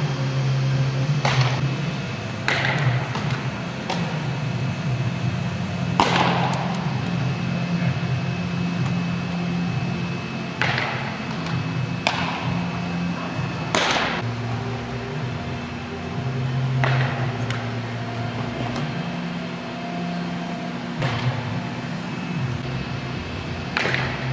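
Sharp knocks of a baseball during infield fielding practice, about ten spread irregularly, over a steady low hum.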